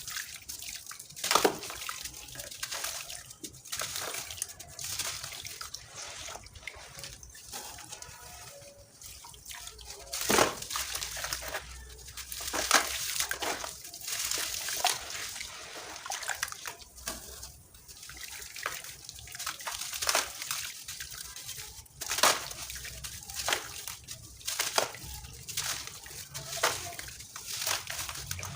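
Crunchy sand-cement being crumbled: a steady run of irregular crunches and crackles, broken by a few sharper, louder cracks about a second, ten seconds and twenty-two seconds in.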